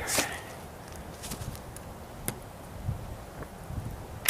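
Multi-pump air rifle (BB/pellet gun) firing: a sharp crack at the start, faint handling clicks, and another sharper crack right at the end.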